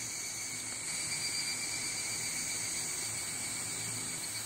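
A chorus of insects calling: several steady, high-pitched shrill tones layered together, unbroken throughout.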